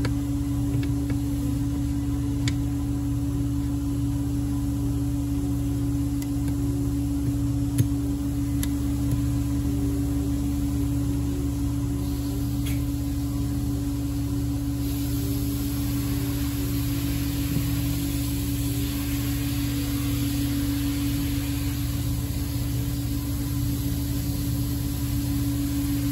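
A steady hum with one constant pitch over a lower drone, with a few short sharp clicks scattered through it; a faint hiss joins about halfway in.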